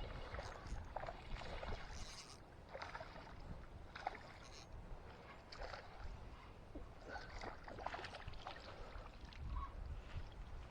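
Faint, irregular small water splashes mixed with scattered clicks and scrapes, with no steady rhythm.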